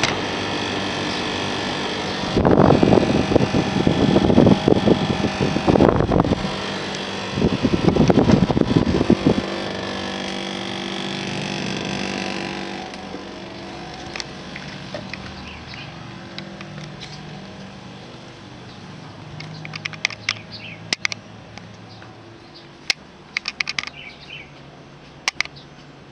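National CU-915KH mini-split outdoor condenser unit running with a steady hum, its noise swelling into louder, rough stretches twice in the first ten seconds. About twelve seconds in the sound drops and then fades steadily, with short sharp chirps near the end.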